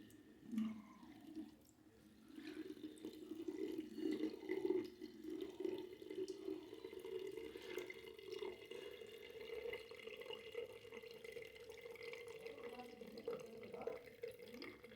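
Water trickling steadily. It is faint for the first couple of seconds, then runs on evenly.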